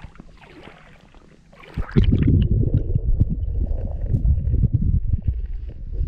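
A camera microphone going under creek water about two seconds in. From there a loud, muffled underwater rumble with gurgling and small knocks.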